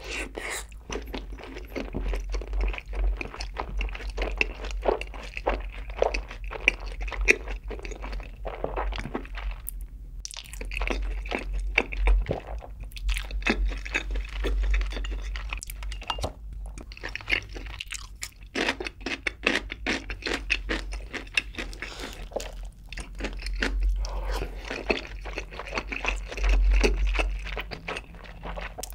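Close-miked chewing of a mouthful of sauce-coated fried chicken: a dense run of crisp crunches and wet mouth sounds, with a few short pauses.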